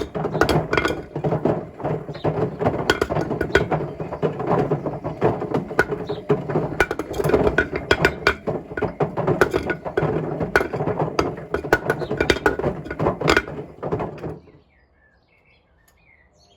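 A brick tumbling in the drum of a Hotpoint Smart Tech WMFUG742 washing machine during its load-distribution phase, knocking and clattering in rapid, irregular hits over a steady hum of the running machine. It is loud, and the knocking cuts off suddenly about two seconds before the end.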